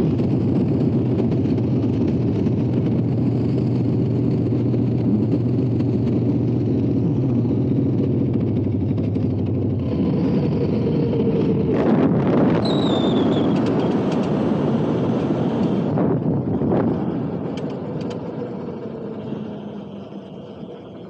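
A motor vehicle running steadily, with a brief high squeal sliding down in pitch about twelve seconds in, then fading away over the last few seconds.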